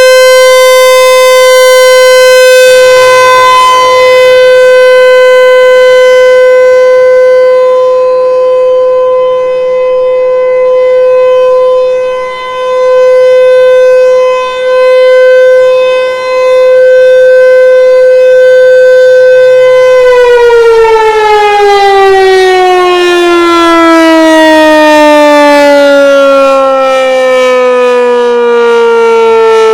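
American Signal Corporation T-128 mechanical outdoor warning siren sounding its steady alert tone, very loud, with a few brief dips in loudness. About twenty seconds in, the pitch starts falling steadily as the siren winds down at the end of the alert signal.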